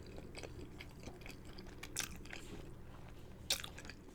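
A person chewing a mouthful of Parmesan chicken, with a run of wet mouth clicks and smacks; one sharper click stands out near the end.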